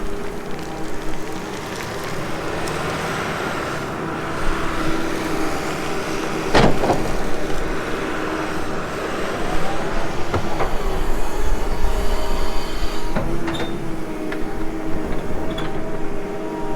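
Diesel excavator working: the engine runs steadily under load with hydraulic whine, and a few sharp metallic knocks, the loudest about six and a half seconds in.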